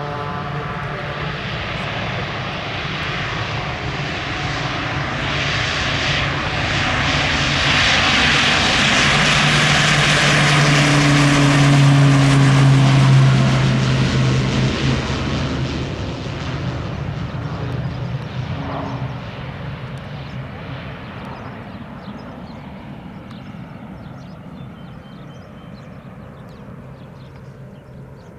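Pilatus PC-12/47E single-engine turboprop (Pratt & Whitney PT6A) at takeoff power, passing and climbing away. A rushing engine and propeller hum swells to its loudest about 13 seconds in, drops in pitch as it passes, then fades away.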